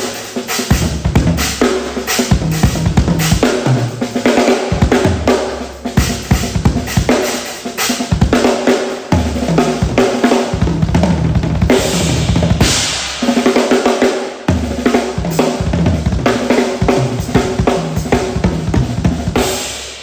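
Acoustic drum kit played in a continuous groove with fills: bass drum, snare, toms and a cymbal crash about two-thirds through, fading out at the very end. The snare and toms carry Drops gravity dampers, which act as a gate that shortens their ring without choking the tone.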